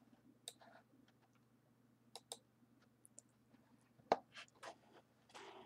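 Faint, scattered clicks of a computer mouse, about half a dozen, with the loudest a little after four seconds in, over a faint steady low hum.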